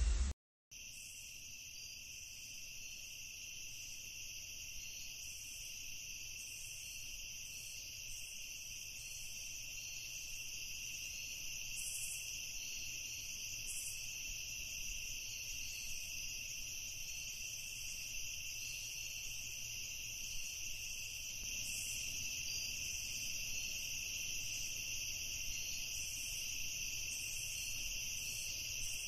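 A steady, high-pitched insect chorus, like crickets chirring, starting about a second in after a brief silence and growing slightly louder.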